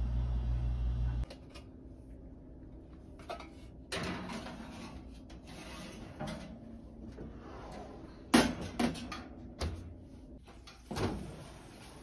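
Clunks and knocks of a metal roasting tray being slid onto an oven rack and the oven door being handled, with the sharpest knock about eight seconds in. It opens with a low steady hum that cuts off after about a second.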